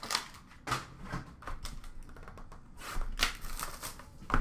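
Cardboard trading-card boxes being handled: a few sharp clicks and knocks with light rustling as a sealed box is picked up.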